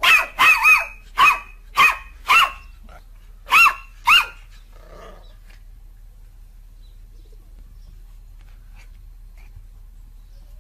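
A puppy giving about eight short, high-pitched barks in quick succession over the first four seconds.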